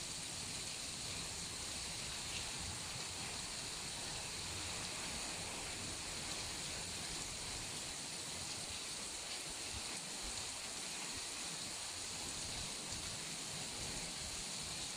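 Steady hiss of tropical-storm rain and wind, even and unbroken.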